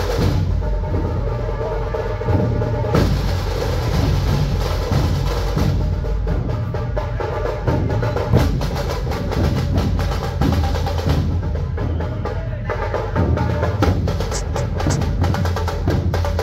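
Dhol-tasha troupe drumming: big two-headed dhol barrel drums beaten with sticks in a loud, dense, continuous rhythm, with sharp cracking strokes over the deep booms.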